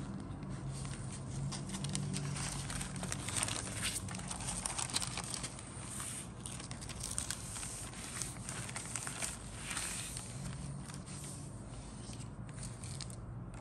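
Thin clear plastic bag crinkling and rustling as the decal sheets inside it are handled and slid about, in uneven spells that are busiest early on and again about two-thirds in. A faint low steady hum runs underneath.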